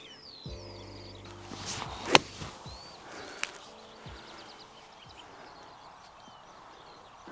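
A golf wedge swung with a short whoosh and striking the ball with a sharp crack about two seconds in; a fainter click follows about a second later.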